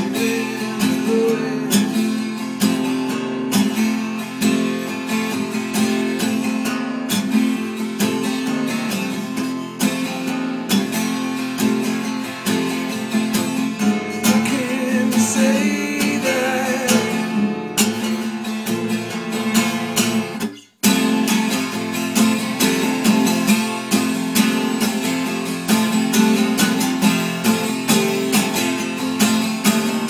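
Acoustic guitar strummed in a steady rhythm, an instrumental stretch of a song with no singing. The sound cuts out for a split second about twenty seconds in.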